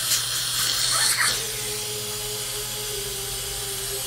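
Dental suction tip running in the patient's mouth during root cleaning, a steady hiss over a low hum, with a steady mid-pitched tone coming in about a second and a half in.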